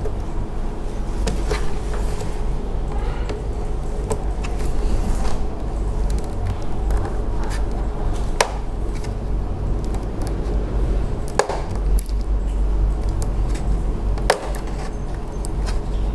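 Sharp plastic clicks and snaps, spaced irregularly, as a screwdriver pries the snap-fit clips of an all-in-one PC's plastic back cover loose around its edge. A steady low hum lies under them.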